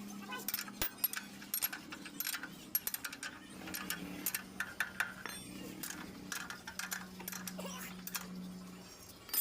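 Irregular metallic clinks and clanks from hand tools and metal parts being handled while a motorcycle drive chain is worked on, over a steady low hum.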